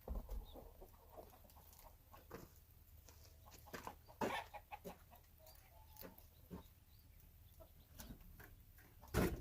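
Scattered light clicks and knocks of plastic dashboard trim being handled and pressed back into place, with a louder knock near the end.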